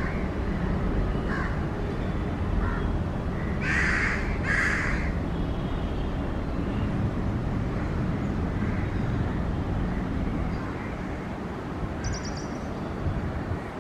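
A crow cawing: two loud harsh caws about four seconds in, with fainter calls earlier and a brief high bird chirp near the end. Under the calls runs a steady low rumble from the approaching locomotive-hauled train.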